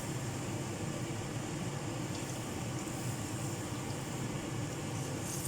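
Pot of chicken adobo simmering on the stove, a steady low bubbling hiss with no sharp knocks.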